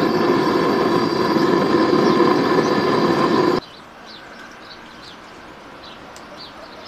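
A loud, steady rushing noise with a hum running through it cuts off suddenly a little past halfway. After it, small birds chirp over a quiet background.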